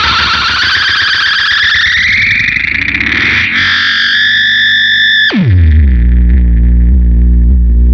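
Gibson SG electric guitar through a Big Muff fuzz and an MXR Analog Delay with light reverb: a wash of echoing fuzz that rises in pitch and settles on a held high tone. About five seconds in, the pitch dives sharply into a loud, steady low drone.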